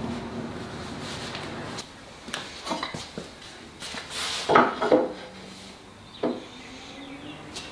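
A steady low hum, then short scrapes and knocks from a hand-held plastic scraper worked against the inside corners of a veneered MDF and timber cabinet carcass. The loudest scrape comes about halfway through.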